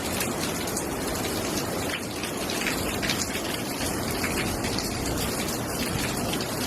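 Heavy hurricane rain pouring down steadily, with wind rushing through.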